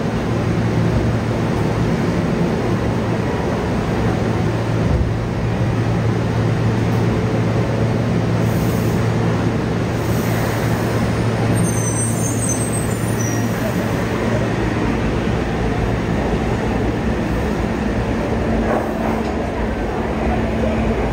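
Yokohama Municipal Subway Blue Line electric train with a Mitsubishi IGBT-VVVF inverter standing at an underground platform with a steady hum, then pulling out. Brief high gliding inverter tones about halfway through as it starts moving, and its running noise carries on along the tunnel as it leaves.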